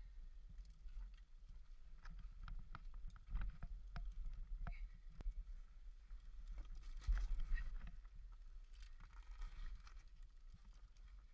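Scattered knocks, taps and scuffs over a low rumble, with a longer stretch of scraping about two-thirds of the way through: handling and movement noise from a GoPro carried by a caver moving over rock.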